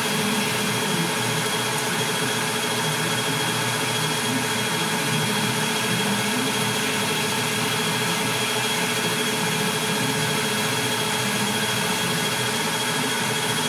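Metal lathe running steadily, its motor and spindle giving a constant hum with a thin high whine, while a recessed crown is cut into the muzzle of a rifle barrel.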